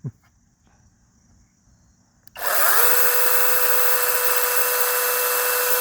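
Battery-powered handheld mini chainsaw switched on about two seconds in, spinning up quickly and then running steadily with a high whine, chain running free with no load. Not too loud.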